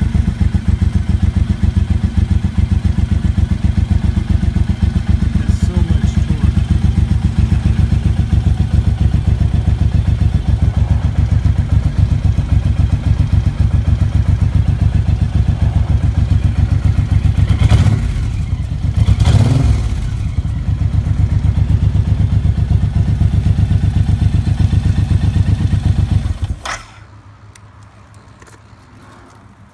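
The 2007 Suzuki Boulevard M109's 1783 cc fuel-injected V-twin idles with an even, low pulse. It is revved briefly about two-thirds of the way in. Near the end it is switched off at the key and cuts out suddenly.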